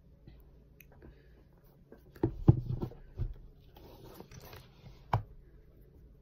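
Makeup palette and brushes being handled: a quick run of clicks and knocks about two seconds in, a soft rustle, then another knock about five seconds in.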